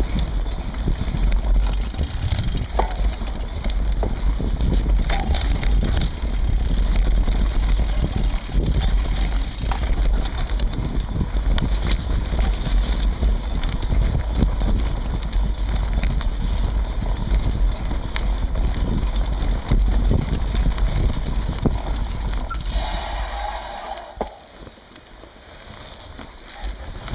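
Mountain bike riding over a rough woodland trail, recorded from a camera on the seatpost: a continuous low rumble with frequent rattles and knocks from the bike and camera mount over the ground. It goes quieter for a couple of seconds near the end, then picks up again.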